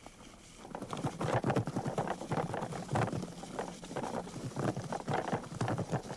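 Dense, irregular crackling and popping, fast and uneven, starting about a second in: vegetation burning as a lava flow overruns it.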